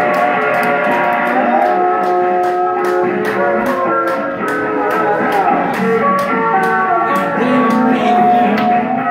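Live rock band playing, with electric guitar to the fore over steady drum strokes; held notes bend up and down in pitch.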